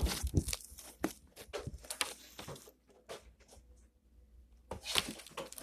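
Slime being squeezed and pulled in the hands: scattered small clicks and crackles, sparse at first and then a denser cluster near the end.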